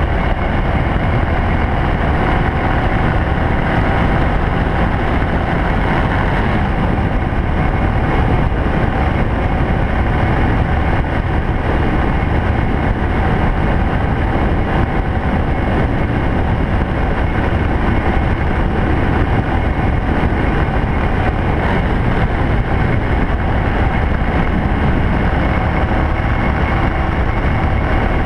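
1987 Honda VT500 Shadow's V-twin engine running steadily at cruising speed, heard from a handlebar-front mount together with a steady rush of wind and road noise.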